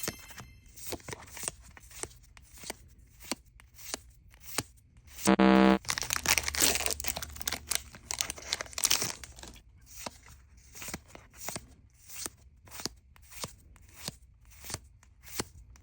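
Foil wrapper of a Pokémon card booster pack crinkling and tearing in a run of sharp, irregular crackles. A short pitched tone, the loudest sound, sounds about five seconds in.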